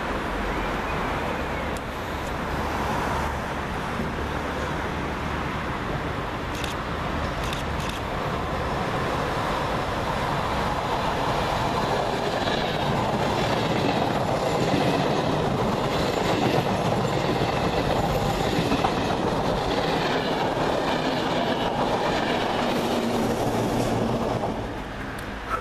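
Electric regional passenger train, a rake of coaches led by a cab car, passing along the platform track. Its wheels rumble and rattle on the rails, with some clicks of wheels over rail joints. The sound grows louder as the train passes and drops away sharply near the end as the last coach goes by.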